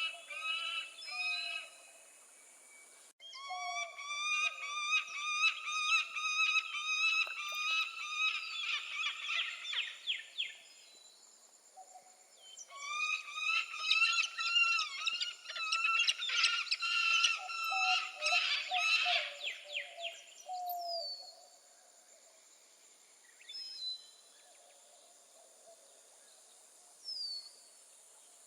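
Peregrine falcon calling: two long, rapid runs of repeated notes, then quieter, with two short calls near the end.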